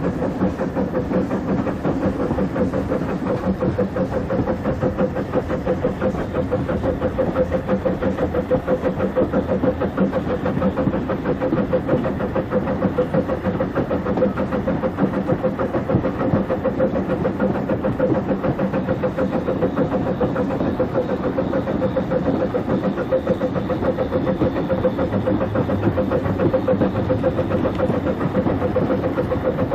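00 gauge model train running along the track: a steady electric-motor hum over the rumble of small wheels on the rails.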